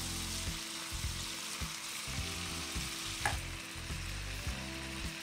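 Duck pieces and sliced onion sizzling steadily as they sear in rendered duck fat in an enameled cast-iron Dutch oven, with the meat being shifted around the pot.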